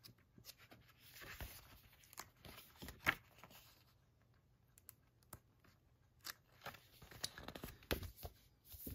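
Pages of a thin paper booklet being turned by hand: a string of short, faint papery flicks and rustles, the sharpest about three seconds in, with a quieter stretch in the middle.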